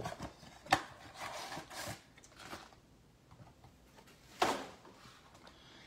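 Foil-wrapped trading card packs and a cardboard blaster box being handled: a sharp click near the start, light rustling, and one short, louder rustle past the middle.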